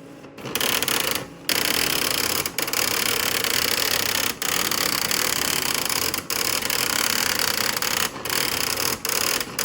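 Daisy wheel printer printing: a loud, dense, rapid clatter of the hammer striking the print wheel, broken by short pauses every second or two.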